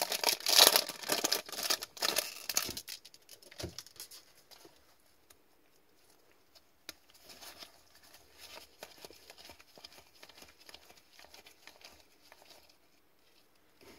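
Foil hockey card pack torn open and crinkled in gloved hands for the first few seconds, then soft clicks and slides of the cards being flipped through one by one.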